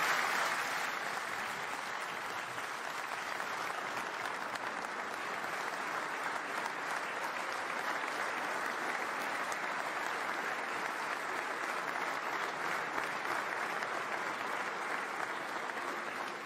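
Sustained applause from a large audience, many pairs of hands clapping. It eases slightly over the first second or two, then holds steady.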